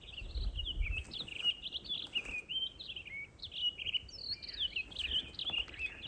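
A songbird singing a continuous run of quick, high chirping notes.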